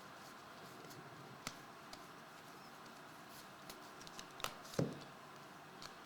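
Faint clicks and light taps of trading cards and packs being handled on a table, with a soft thump a little before the end.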